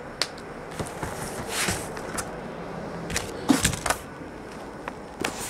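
Cardboard boxes of trading cards being handled and set down on a tabletop: scattered knocks and short scraping rustles, the loudest about three and a half seconds in.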